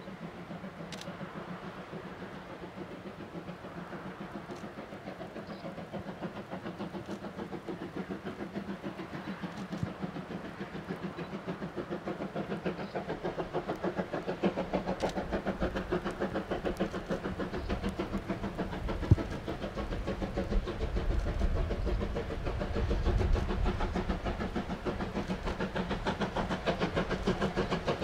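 C12 66, a two-cylinder 2-6-2 steam tank locomotive, working under steam with a rapid, even chuffing exhaust beat that grows louder as it approaches, joined from about halfway by a deepening low rumble.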